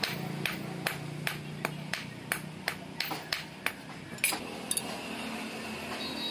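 Blacksmith's hand hammer striking a sickle blade on a small iron anvil, forging it: a dozen sharp metallic clanks at about three blows a second. The hammering stops about four seconds in.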